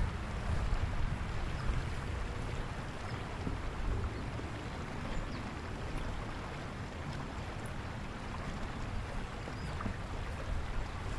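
Wind buffeting the microphone outdoors: a steady, fluctuating low rumble with an even hiss above it.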